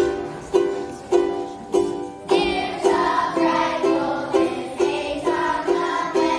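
Children singing together to a steady strummed string accompaniment. The strummed chords play alone at first, and the voices come in a little over two seconds in.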